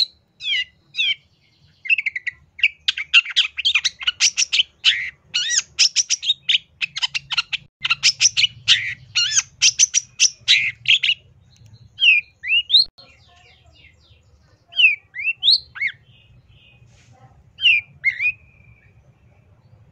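Long-tailed shrike (cendet) singing: a fast, dense run of chattering, varied notes for about the first eleven seconds, then single sweeping calls a second or so apart.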